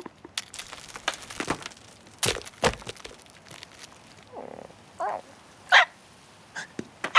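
Cartoon slapstick soundtrack: a run of sharp knocks and clicks, then a few short pitched animal-like cries from a cartoon character.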